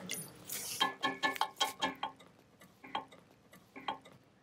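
Liquid dripping into a steel milk can, each drop a short ringing plink: a quick run of them about a second in, then two single drops near the end.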